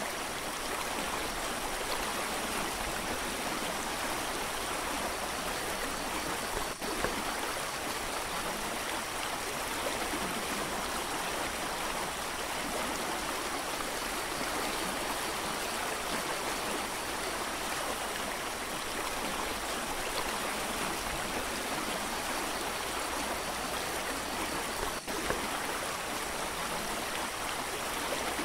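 Mountain creek rushing steadily, an even roar of flowing water with two short clicks, one about seven seconds in and one near the end.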